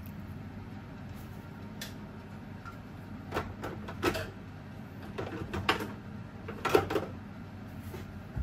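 Several sharp clicks and knocks, the loudest near the end, over a steady low hum.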